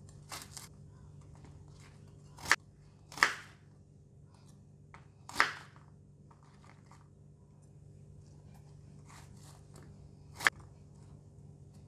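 Chef's knife cutting through a luffa gourd and hitting a wooden cutting board: about five sharp, separate crunching cuts, spaced unevenly, over a faint steady hum.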